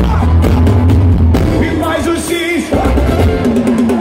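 Live forró band playing through a big concert sound system, with singing over a heavy bass line.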